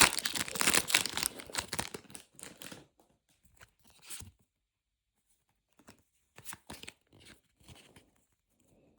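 Foil Pokémon booster pack being torn open, with dense crinkling for about two seconds that trails off into a few shorter crackles, then a pause and scattered brief rustles of the cards being handled.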